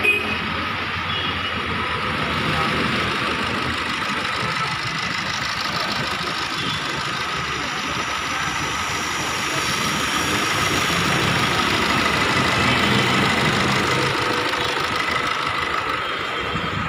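Maruti Suzuki Ritz engine idling steadily during an engine carbon-cleaning treatment, with the cleaning machine's hose feeding its air intake. A steady high tone runs along with the engine.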